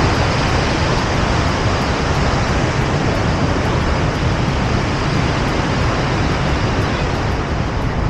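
Loud, steady rush of river water pouring over the spillway weir beneath a road bridge, an even rushing noise without a break.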